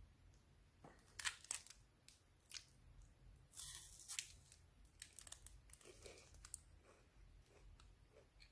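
Foil wrapper crinkling, then a crunchy bite into a crisp hazelnut wafer bar around three and a half seconds in, followed by small scattered crackles.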